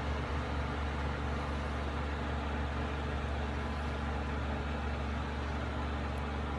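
Steady low hum of running machinery with a noisy hiss above it, unchanging throughout.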